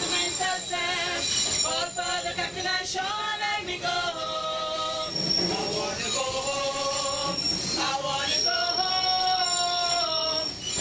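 A small group of women singing together in harmony into a microphone, amplified over the open railcar's speakers, in long held notes. The train's running noise lies beneath, with a thin high steady squeal of the wheels from about halfway through.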